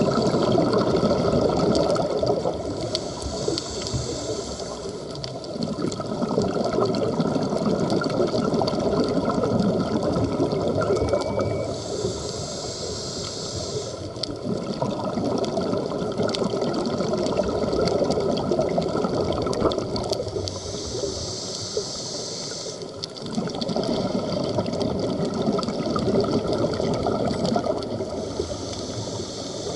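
Scuba diver breathing underwater through a regulator. A hiss on each inhale alternates with a long bubbling rush on each exhale, about one breath every eight seconds.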